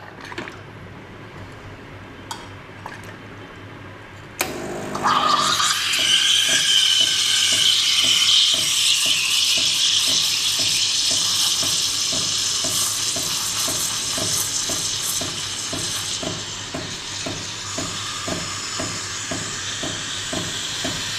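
Steam wand of a Ferratti Ferro FCM 3012 espresso machine steaming milk in a stainless pitcher. It is quiet with a couple of light clicks at first; about four seconds in the steam opens with a short gurgling screech. It then settles into a steady loud hiss, with a high whistle at first and a regular pulsing underneath a little over two times a second. The steam is on the gentle side, a little weaker than its sister model by the reviewer's ear.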